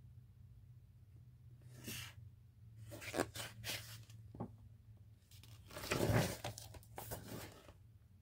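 Paper rustling as a picture-book page is handled and turned: a few soft rustles, the loudest about six seconds in, over a faint steady low hum.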